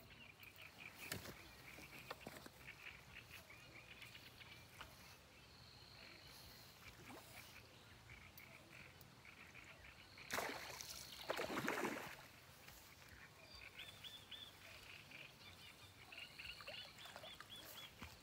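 Frogs calling faintly in rapid pulsed trains from the pond, with a louder noisy burst lasting nearly two seconds about ten seconds in.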